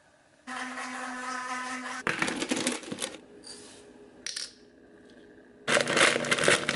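Breakfast being made: a steady hum for about a second and a half, then dry quick oats clattering into a bowl. Near the end a plastic bag of frozen berries crinkles loudly as it is handled.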